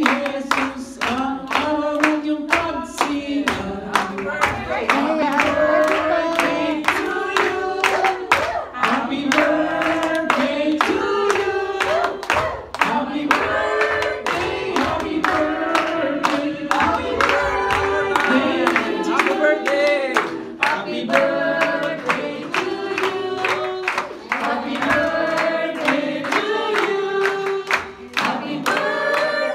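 A group of people singing a song together in unison, clapping along on a steady beat of about two claps a second.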